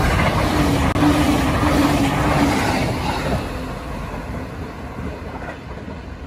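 A JR E257 series limited-express electric train passing through a station at speed: a loud rush of wheels on rail with a steady hum for the first two or three seconds, then fading as the last car goes by and the train draws away.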